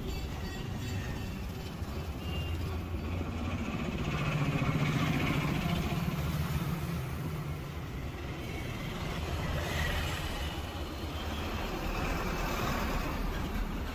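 Street traffic noise: steady engine rumble with a vehicle passing louder about four to seven seconds in.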